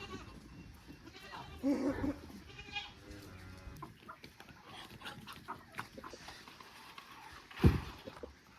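Goats bleating, with two short calls in the first three seconds, then a single loud thump near the end.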